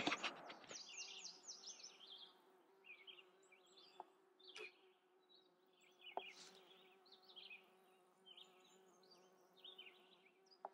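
Faint, steady buzzing of flying insects, with short high chirps scattered throughout and a few light clicks.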